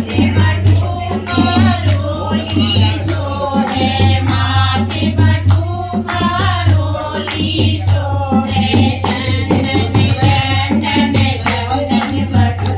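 Kumauni badhai geet, a celebratory folk song, sung over a steady drum beat with hand percussion.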